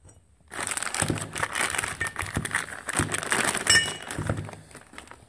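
Small metal screws and hardware parts being handled in a plastic bag: quick clinking and rattling mixed with plastic crinkling. It starts about half a second in and dies away near the end.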